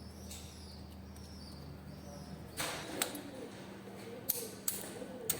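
Hand tools working on a diesel engine's cylinder head: a short scrape followed by four or five sharp metallic clicks in the second half, over a faint steady hum.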